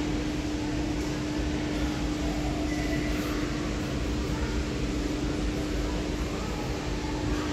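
Steady background hum inside a large store, with a constant low-pitched tone held unbroken over an even hiss, typical of air-conditioning or ventilation.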